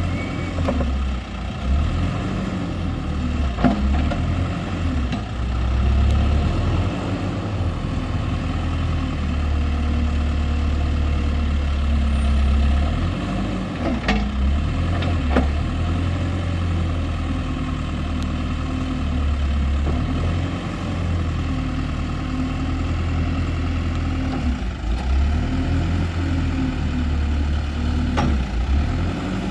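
Case 580M Turbo backhoe's turbocharged diesel engine running at idle, steady throughout, with a few light clicks or knocks over it.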